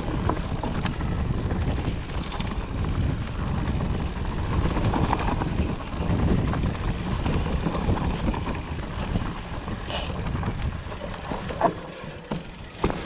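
Specialized Turbo Levo e-mountain bike descending a dirt forest trail: a steady low rumble of wind on the microphone and tyres on the ground, with short knocks and rattles from the bike over bumps. The rumble eases a little near the end.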